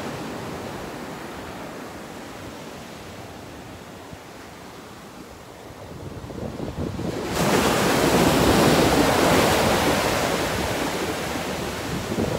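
Ocean surf washing onto the beach as a steady rushing noise. About seven seconds in it gives way suddenly to a louder, brighter rush of wind on the microphone.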